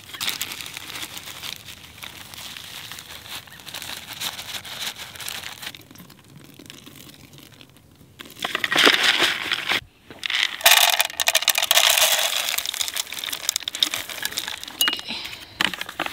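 Paper seed-inoculant packet crinkling as it is tipped into a plastic bucket over a pea-and-oat seed mix, then water poured into the bucket from a cup: a louder rushing splash from about eight seconds in, with a short break near ten seconds, tailing off near the end.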